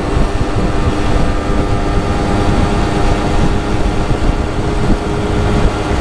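Simson moped's two-stroke single-cylinder engine running at steady revs under way, with wind rumbling on the microphone.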